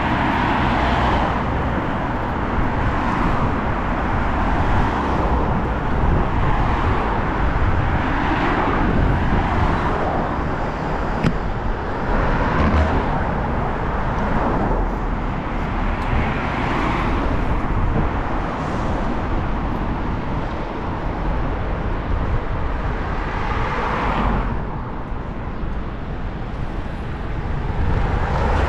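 Road traffic: a string of cars passing, one every few seconds, over a steady low rumble.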